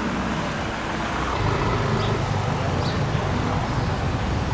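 City street traffic: cars and motorbikes going by on a road, a steady low rumble that grows a little louder about a second in.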